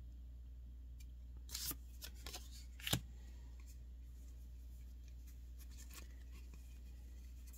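Magic: The Gathering playing cards being handled and slid past one another, a few short crisp card snaps and rustles about one and a half to three seconds in, then fainter handling.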